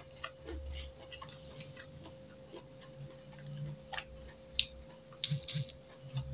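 Close-up eating sounds: chewing and lip smacking while eating rice and side dishes by hand, with scattered small wet clicks and a few sharper clicks about four to five and a half seconds in. A steady high-pitched whine runs underneath.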